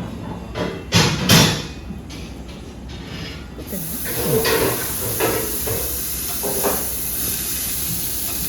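A few clatters, then about three and a half seconds in a steady sizzling hiss of food cooking on a hot surface starts and keeps going.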